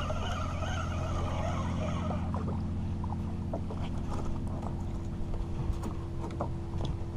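A boat's motor idling with a steady low hum. For the first two seconds a spinning reel is cranked with a whirring sound, then scattered knocks and taps follow as a small snook is swung aboard onto the deck.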